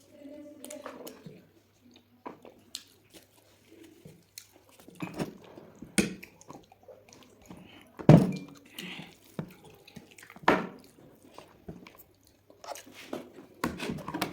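Close-up eating sounds: a person chewing and biting into cooked chicken, with irregular wet clicks and knocks. The loudest knock comes about eight seconds in.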